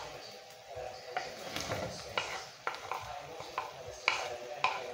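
Wooden spoon scraping and knocking against a frying pan, in short strokes about two a second. The loudest knocks come near the end.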